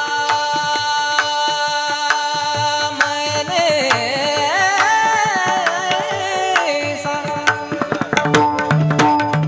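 Varkari bhajan music: a high male voice holds and ornaments a long wordless sung note over steady held accompaniment tones. Pakhavaj strokes run underneath and grow dense and rapid in the last couple of seconds.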